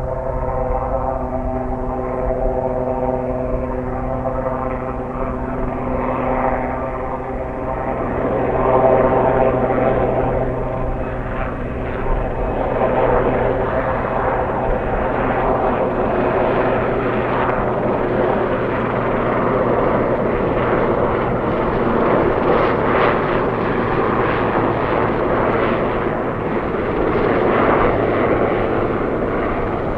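Sikorsky S-61A helicopter running, its twin turboshaft engines and main rotor making a steady, loud drone. Steady pitched tones fade about eight seconds in, and a rougher rotor noise takes over.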